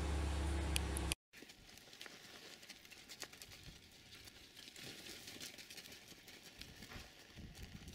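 A steady low hum cuts off about a second in. After a short gap come faint crackling and pattering footsteps: a sheep's hooves and a wolf pup's paws on dry dirt and brush.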